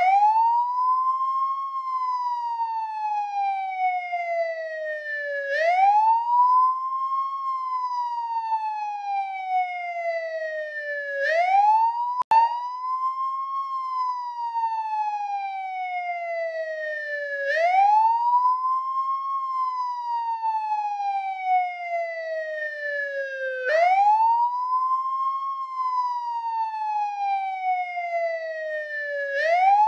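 American police car siren on its wail setting: a tone that rises quickly and then falls slowly, repeating about every six seconds. There is a brief click and dropout about twelve seconds in.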